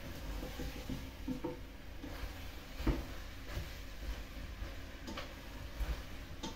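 Tomato and vegetables frying in a stainless steel pot as they are stirred: a steady low sizzle with scattered light knocks and scrapes of the spoon against the pot, the loudest knock about three seconds in.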